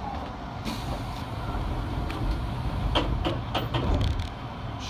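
Low, steady rumble of a Keisei 3700 series electric train standing at the platform, heard from inside the driver's cab, swelling slightly midway, with a few sharp clicks about three to four seconds in.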